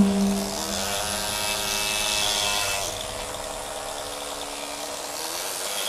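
Pneumatic carving chisel (air hammer) chattering against a block of stone, a steady buzz that drops and shifts in pitch about three seconds in and again near the end, with a hiss of chipping stone.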